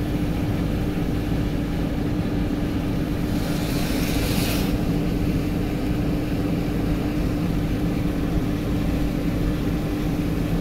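Steady road and engine noise heard from inside a moving car's cabin on a wet road, with a constant low hum. About three and a half seconds in, a brief rushing hiss rises over it and fades about a second later.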